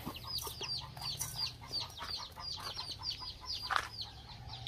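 Chickens peeping nearby: a rapid, unbroken run of short, high, falling peeps, several a second, with one short louder click about four seconds in.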